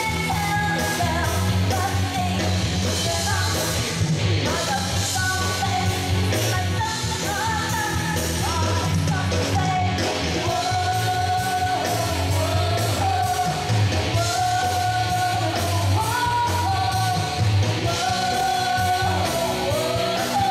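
Live band playing an upbeat rock-pop song with a steady driving beat, a woman singing the melody into a microphone over it.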